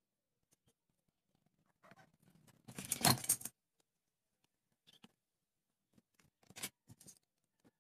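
Craft handling noise: a short burst of rattling and scraping about three seconds in as a plastic protractor is laid on a wooden board, then a few faint scratches near the end as a pen marks the board along it.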